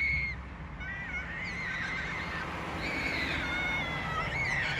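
Animal calls: several high, wavering calls overlapping one another throughout, over a steady low rumble.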